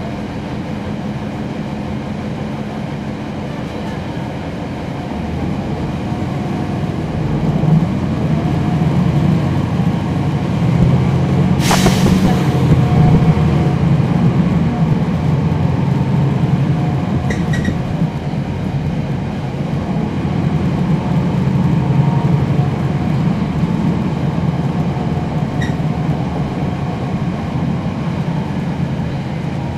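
A NABI 40-SFW transit bus heard from on board: its Cummins ISL9 inline-six diesel and ZF Ecolife automatic transmission run with a steady drone. The drone grows louder about six seconds in and stays up, with one sharp click about twelve seconds in.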